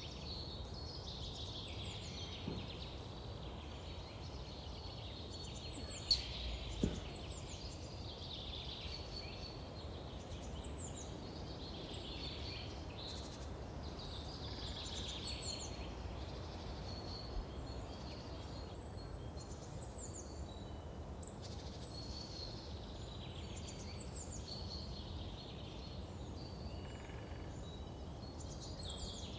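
Woodland birds singing and calling over and over, with a few sharp clicks of sticks and bark being handled, two of them about six and seven seconds in.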